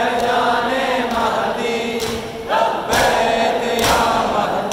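Group of men chanting a noha in unison. In the second half come sharp slaps about a second apart, the rhythmic chest-beating (matam) of mourners.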